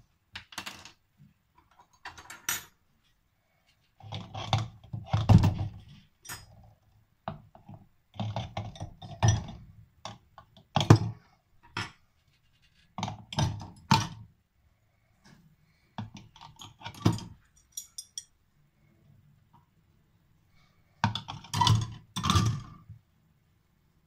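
Irregular clatter, clicks and knocks from handling a plastic bottle and old steel auger bits in a stainless-steel sink, coming in short bursts with pauses between them.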